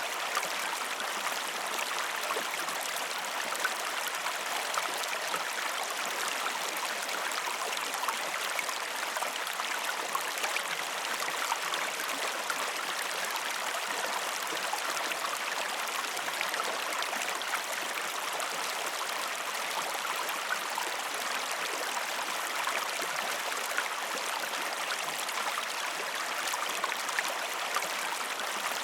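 Waterfall: a steady rush of falling water with a fine spatter of small splashes.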